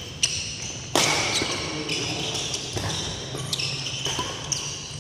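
Badminton rally: rackets sharply hitting the shuttlecock several times, with sneakers squeaking on the court floor.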